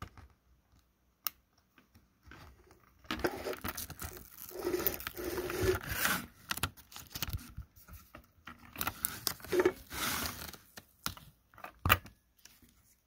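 An orange sheet being peeled off the sticky surface of a Cricut cutting mat, pulled away from the cut-out stars in two long stretches of peeling noise, the first starting about three seconds in and the second about eight seconds in, with a few short handling clicks around them.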